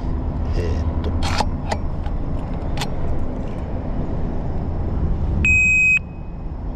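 A few sharp clicks as an ABUS alarm disc lock is handled, then a single short, loud electronic beep from the lock about five and a half seconds in, the beep it gives as its alarm sets.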